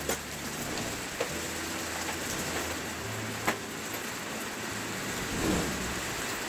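Steady hiss of workshop background noise with a faint low hum and a few light clicks of handled parts or tools, the sharpest about three and a half seconds in.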